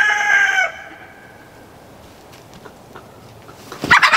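A rooster's crow, a long steady call, ends about half a second in. After a quiet stretch, near the end, a hen breaks into loud, rapid squawking and clucking in alarm as she is grabbed at to be caught.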